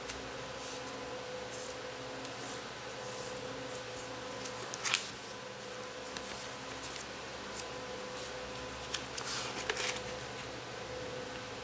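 A sheet of paper being handled, folded and creased by hand: scattered rustles and crinkles, sharpest about five seconds in and again in a cluster near nine to ten seconds. A steady hum runs underneath.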